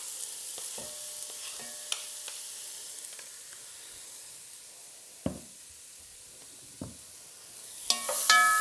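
Diced onion, carrot, celery and garlic sizzling in olive oil in a pot, with a few dull knocks in between. Near the end a wooden spoon stirs the pot and the sizzle grows louder.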